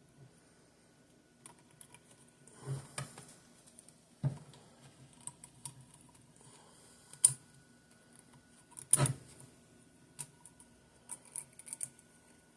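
Light metallic clicks and ticks as the coiled retaining spring is worked by hand around a Mercury outboard's dog clutch, with a few sharper clicks about 3, 4, 7 and 9 seconds in and a quick run of small ticks near the end.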